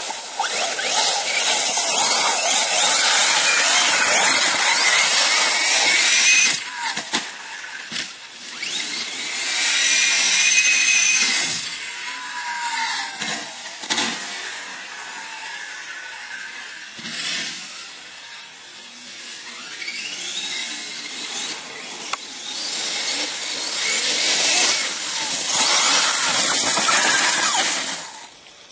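Large-scale Losi radio-controlled buggy running and revving as it drives over slushy snow, a buzzing motor sound. It is loud for the first six seconds, fades as the buggy goes off into the distance, and grows loud again near the end as it comes back close.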